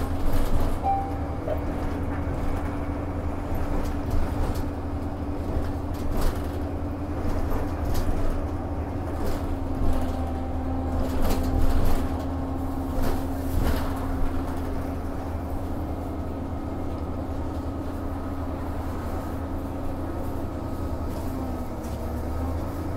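Inside a moving city transit bus: the engine and drivetrain hum steadily over a low rumble, with occasional clicks and knocks. The hum dips in pitch and comes back near the end as the bus slows through a turn.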